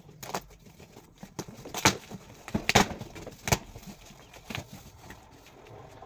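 Cardboard air-fryer carton being handled: about five sharp knocks and taps, loudest two and three seconds in, with light scraping and rustling between them.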